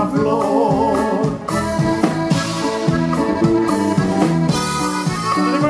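Norteño band playing live, with accordion, saxophone and drums carrying a steady, rhythmic instrumental passage.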